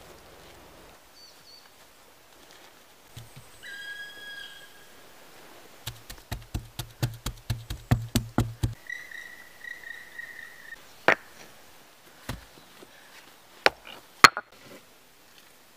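A quick run of about twenty sharp wooden knocks, roughly seven a second, as a stick is worked against the log wall of a cabin, with a bird calling short whistled notes before and after. Then a few single knocks, the loudest near the end, as stones are set around a fire pit.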